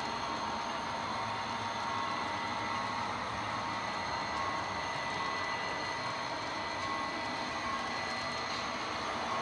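HO scale model train running along the track: a steady hum of motor and wheels on rail, with a faint tone that pulses about once every 0.8 seconds.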